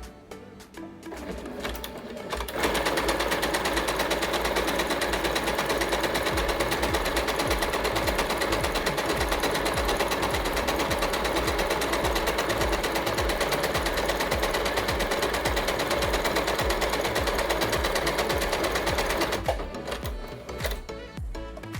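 Yamata digital sewing machine running at speed, stitching one of its built-in decorative designs. Its needle makes a steady, rapid chatter that starts about two and a half seconds in and stops a couple of seconds before the end, with background music underneath.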